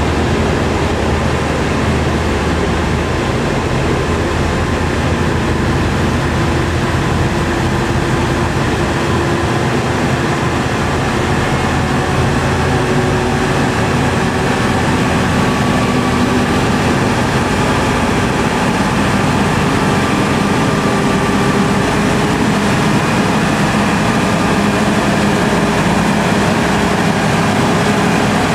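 Heavy diesel truck engines running under load on an uphill climb, a steady drone whose pitch drifts slowly up and down.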